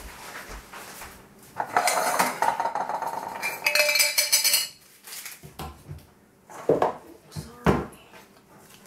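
Metal pots, pans and utensils clattering as they are handled, a dense noisy rattle with some ringing lasting about three seconds, then a few separate knocks.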